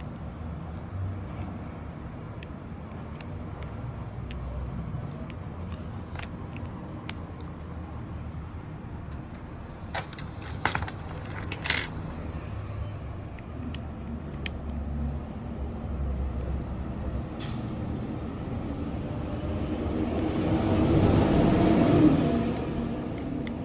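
Steady low traffic rumble with a few sharp clicks around the middle. Near the end a heavier vehicle swells up louder and fades again as it passes.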